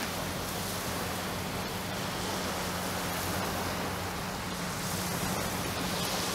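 Small waves breaking and washing on a shingle beach: a steady rushing noise, with a faint low hum underneath.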